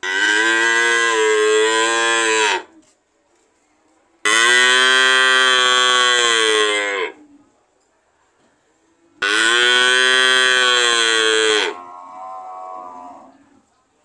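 Cow mooing: three long, loud moos of even pitch a couple of seconds apart, then a quieter, shorter moo near the end.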